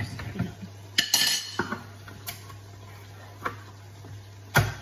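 Kitchen clatter: metal food tins and utensils clinking and knocking on the worktop, a quick cluster about a second in, then single knocks, the loudest near the end, over a steady low hum.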